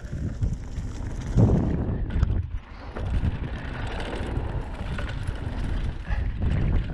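Mountain bike rolling fast down a dirt trail, its tyres running over dirt and leaves and the bike knocking and rattling over bumps, with wind buffeting the camera microphone.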